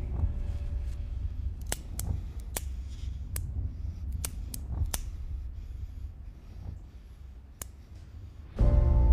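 A small metal cigarette lighter struck again and again: about eight sharp clicks, most of them between two and five seconds in and one more later, over a low steady rumble. Music comes in loudly just before the end.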